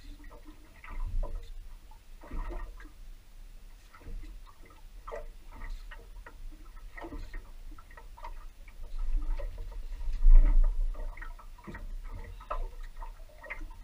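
Small waves slapping and lapping against a boat's hull in irregular knocks, with a low rumble that swells about ten seconds in.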